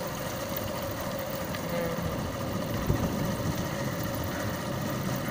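Motorcycle engine running as the bike rolls slowly over concrete, with a steady rumble and one short knock about three seconds in.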